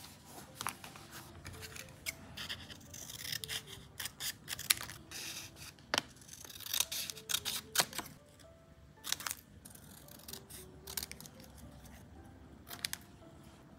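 Soft background music with a simple melody, over close-up desk sounds of paper and sticker sheets being handled: sharp clicks, taps and short rustles, busiest in the first half and thinning out near the end.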